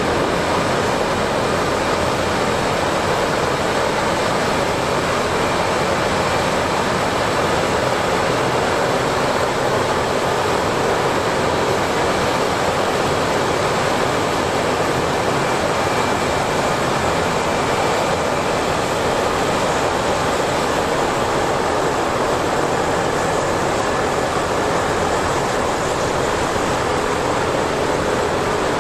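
LCAC air-cushion landing craft running on its cushion: its gas turbines, ducted propellers and lift fans make a loud, steady rush, with a faint high whine over it.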